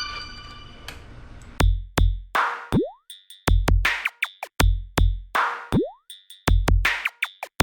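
Electronic background music: a drum-machine beat with deep kicks and sharp snare and hi-hat hits comes in about a second and a half in, with a couple of quick falling swoops.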